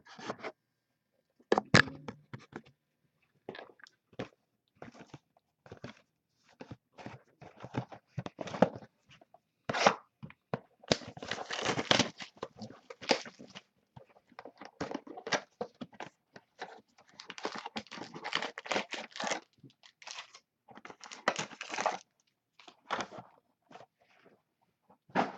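Plastic wrapping being torn and crinkled as a sealed box of 2012 Momentum football cards is opened, in irregular rustles and crackles with denser tearing stretches about halfway through and again later.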